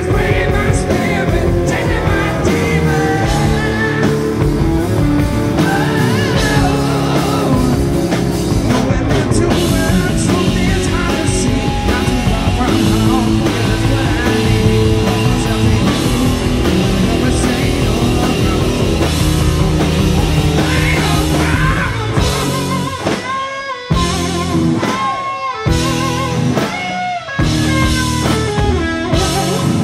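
Live hard rock band playing loud, with electric guitar, bass guitar and drum kit. About 22 seconds in the band breaks into stop-start hits with short gaps, and the lead electric guitar plays bending notes between them.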